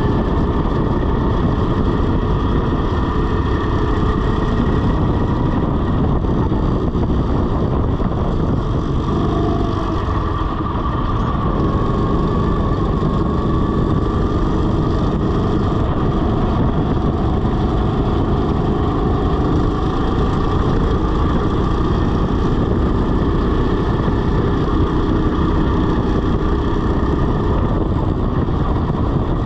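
RiMO rental go-kart driven at speed, its motor running steadily under heavy wind and road noise, with a brief dip in level about ten seconds in.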